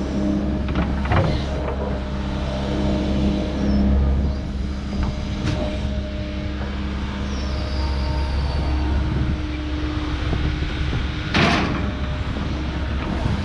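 Earthmoving machine's engine running steadily while loading, with a few sharp metallic clanks. The loudest clank comes near the end.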